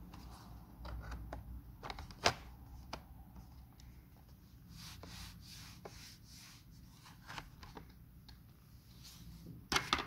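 Plastic bottom cover of an HP ProBook 430 G3 laptop being pushed and slid by hand: scattered plastic clicks and rubbing, then a cluster of sharp snaps near the end as the cover's clips let go and it pops off.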